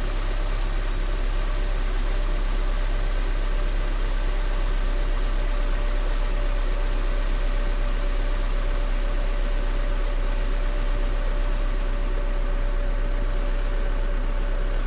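Honda Civic 1.7 inline-four engine idling steadily after a fully cold start, with a steady thin tone running over the idle. It carries the strange cold-start noise that the owner cannot identify.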